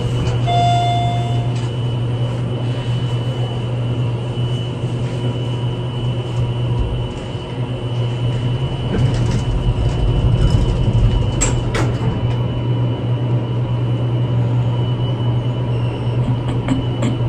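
Elevator car riding, a steady low hum, with a short electronic tone lasting about a second near the start and a few brief clicks later on.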